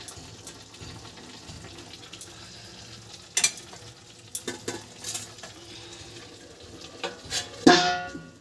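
Prawn and Malabar spinach curry simmering in a kadai with a faint steady sizzle, then a few sharp clinks of utensils on the pan. Near the end a lid is set down on the pan with a loud ringing clang.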